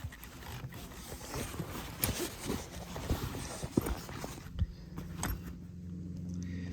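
Rustling and a string of irregular knocks as a compound bow is uncovered and handled, over a steady low hum.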